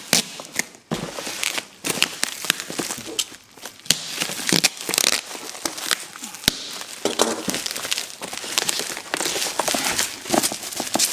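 Plastic bubble wrap crinkling and crackling with many sharp irregular snaps as it is handled and pulled off a boxed router, with sticky tape being peeled away from it.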